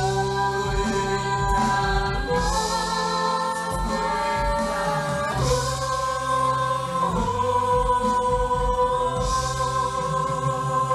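Music: several voices holding long sung notes together over a backing track with a steady beat, the chord shifting a few times, the drawn-out last line of the song.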